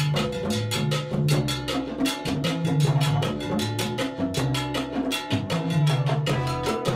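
Salsa music: timbales and congas playing a busy, driving rhythm over a moving bass line.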